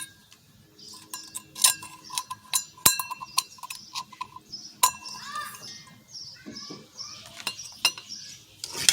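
Metal camping pots, lid and cup clinking and knocking together as the nested cook kit is handled, some knocks ringing briefly. Birds chirp in the background.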